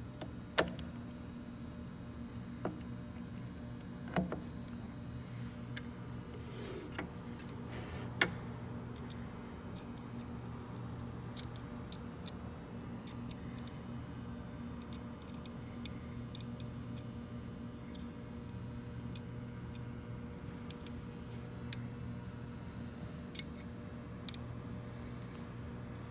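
Scattered sharp clicks and knocks of hand tools and metal parts as bolts on a gearbox are worked loose, over a steady low hum. The knocks come most often in the first several seconds, then grow sparse.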